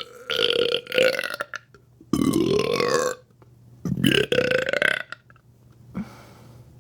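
A woman belching three times in a row. Each burp lasts about a second and has a clear pitch, and the last two slide upward at the start.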